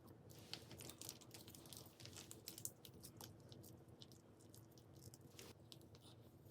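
Faint crinkling and light clicks of small objects being handled, densest in the first half, over a faint steady low hum.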